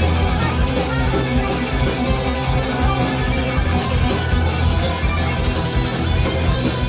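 Heavy metal band playing live in a guitar-led instrumental passage, with electric guitars over a steady, dense low end and no vocals.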